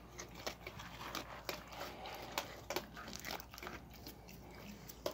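Raccoon eating kibble out of a bucket of water: irregular wet chewing and smacking, a quick patter of small clicks, several a second.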